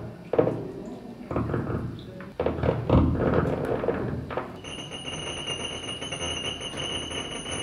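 Irregular knocking and scraping as serving utensils are worked in a salad bowl. About four and a half seconds in, a steady high-pitched tone with overtones starts and holds as liquid is poured from a bottle. This is the table's synthetic sound feedback for pouring.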